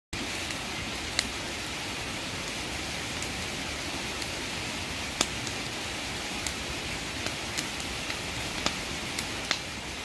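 Wood fire burning in a small metal fire pit: a steady rushing hiss with scattered sharp crackles and pops of the burning wood, the loudest about a second in and about five seconds in.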